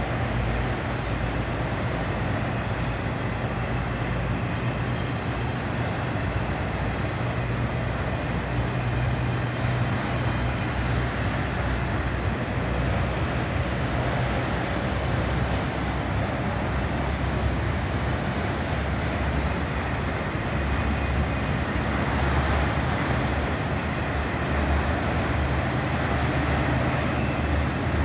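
Freight cars of a long BNSF manifest train rolling past: a steady rumble of steel wheels on rail, with a low hum beneath it.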